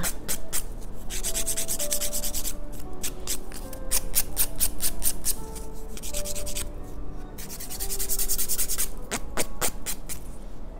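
Hand nail file filing across an extended fingernail in quick back-and-forth strokes, several a second, to shape the nail. The strokes pause briefly about three seconds in and again about seven seconds in.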